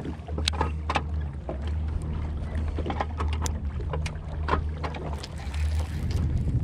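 Wind rumbling on the microphone, with scattered sharp clicks from a baitcasting reel being handled and adjusted as it is set up with new line.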